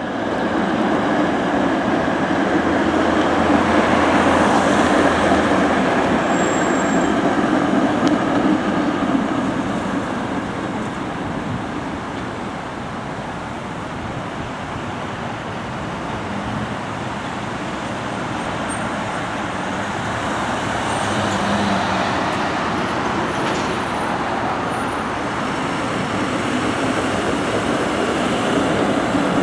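Steady city street traffic noise from passing vehicles, with a few brief, faint high-pitched squeaks.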